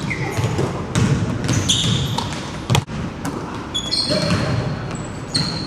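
Basketball dribbled on a hardwood gym floor, a few sharp bounces, with short high squeaks of sneakers on the floor.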